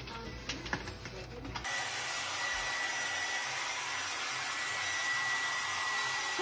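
A hand-held hair dryer blowing steadily, with a thin high whine over the rush of air, cutting in about two seconds in after a short stretch of clicking.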